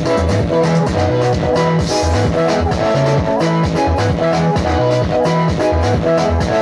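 Upbeat gospel dance music with a steady drum beat and a repeating bass line.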